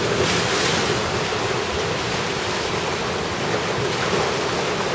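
Rough sea waves and strong wind, a steady rushing noise with gusts buffeting the microphone; the swell is raised by a typhoon's outer circulation.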